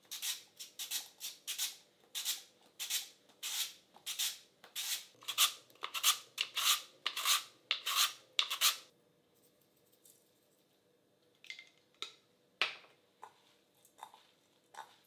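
A peeled root vegetable being pushed back and forth over a handheld mandoline slicer's blade into a stainless-steel pot: quick scraping slices, about three a second, that stop about nine seconds in. After that come a few light clicks and taps as a glass salt jar is handled, one of them sharper.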